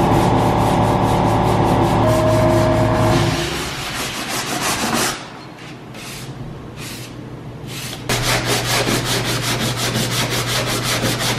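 Sandpaper on a sanding block rubbing over a primed car body panel in back-and-forth strokes. The strokes get quicker and more regular in the second half, about four or five a second. A steady droning hum sounds under the first few seconds.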